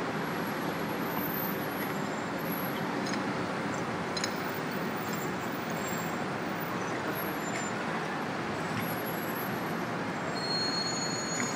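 Steady street traffic noise, an even rush with no distinct events standing out.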